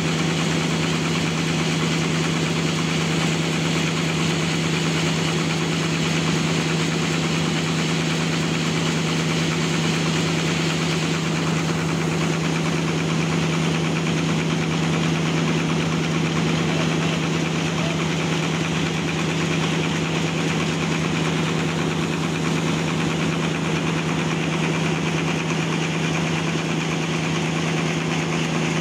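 Engine of an assembled band sawmill running at a steady speed, with an even hum that does not change.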